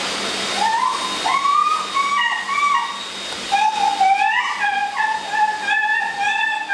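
A dog grooming dryer blowing air through its hose nozzle into a German Shepherd's coat, a steady hiss with a thin high whine. From about half a second in, a run of high held notes that step and glide in pitch sounds over it.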